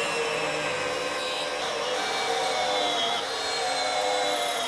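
Cordless drill running steadily under load as a 4 mm pilot bit bores through two layers of the lawnmower's metal deck and welded handle bracket, with a high motor whine that dips briefly about three seconds in.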